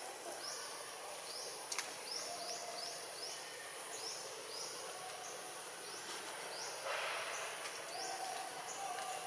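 Outdoor forest ambience: a steady very high insect whine with many short, high chirps falling in pitch, two or three a second. A brief burst of noise comes about seven seconds in.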